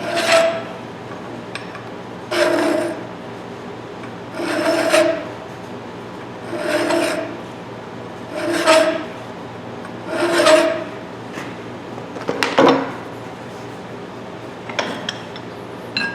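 A hand file rasping across the serrated jaw teeth of a 12-inch Ridgid pipe wrench to clean up the rusty grooves, in slow, even strokes about every two seconds, the metal ringing with each stroke. A few light metallic clinks follow near the end.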